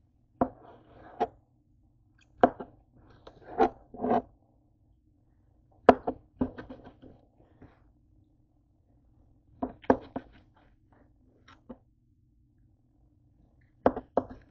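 Kitchen knife chopping cooked chicken breast on a cutting board: sharp strikes of the blade against the board, in irregular clusters of one to three with pauses of a second or more between.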